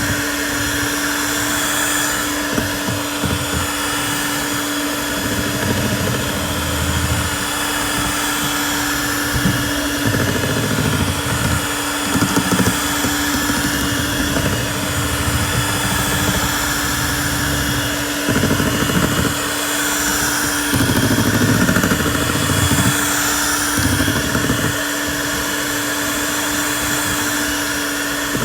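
Electric mixer running steadily with an even hum, with irregular heavier rumbles as it works through the batter.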